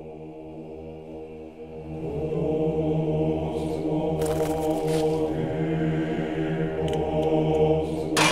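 Soundtrack music: a low, sustained chant-like drone of held tones that swells about two seconds in. A sharp crack comes near the end.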